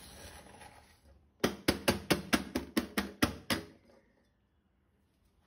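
A quick run of about ten knocks on steel cookware, roughly four a second, starting about a second and a half in and stopping after two seconds. They come from tapping the steel dhokla tin and plate while turning the steamed dhokla out.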